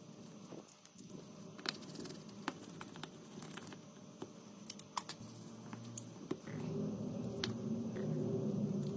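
Scattered light clicks and taps, typical of small hard objects being handled. About six and a half seconds in, a louder, steady low rumbling noise joins them.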